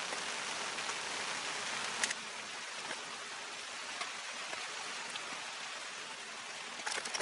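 Steady hiss. A single click comes about two seconds in, after which the hiss is slightly quieter, and a few sharp knocks come near the end.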